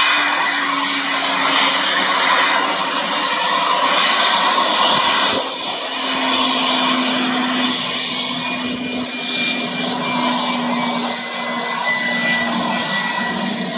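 Bombardier Challenger 300 business jet's turbofan engines running as it taxis past: a steady rush with a whine whose pitch slowly drops as it goes by.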